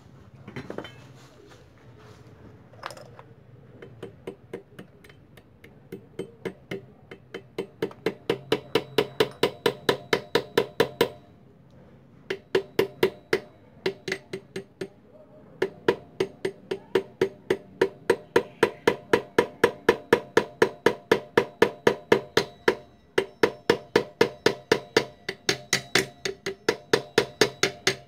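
Rapid light hammer taps on a metal drift, about four a second, in bouts with short pauses, each tap ringing. A part is being driven onto the keyed balancer shaft of a motorcycle engine until it seats.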